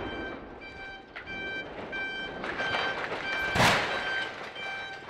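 Explosive cutting charges fired at the base of a 60-metre steel lattice power-line pylon: the rumble of the blast dies away, then about three and a half seconds in a second short loud burst as the tower crashes to the ground. A repeating electronic beep pattern runs underneath.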